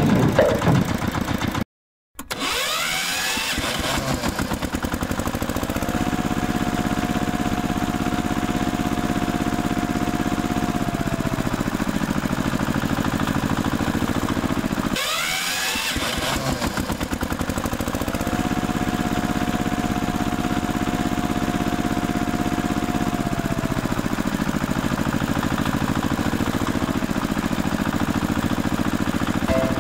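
Music cuts off in a short gap of silence about two seconds in. Then a vehicle engine sound effect plays: it starts with a rising rev and settles into a steady run with a held whine that falls away at the end. The same sequence repeats about thirteen seconds later.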